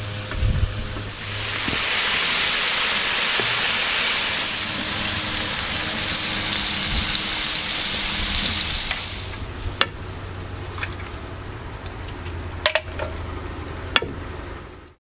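Food sizzling in hot oil and butter in a frying pan over a campfire, loud for most of the first nine seconds, then settling to a quieter sizzle. A few sharp taps come over it in the last few seconds.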